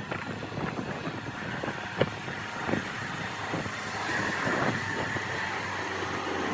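A vehicle or machine engine running, with scattered knocks and clatters; a steady whine sets in about four seconds in.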